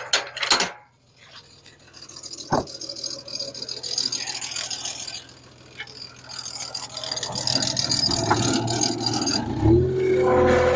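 Sawmill running, with two long stretches of whirring, rasping noise and a short lull between them. There are a few knocks at the start, and an engine pitch rises and holds steady near the end.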